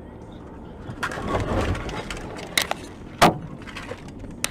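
Road noise inside a moving car, with a rustling swell about a second in, then a few sharp clicks or knocks; the loudest knock comes a little past three seconds in.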